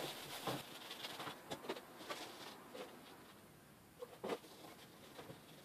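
Faint rubbing and rustling of a cloth wiping construction lines off a drilled metal panel, with scattered light ticks and a couple of sharper clicks about four seconds in.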